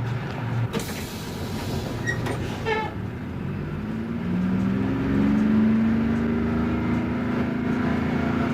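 Bus: a hiss of air for about two seconds, then the engine note climbing slowly in pitch as it pulls away.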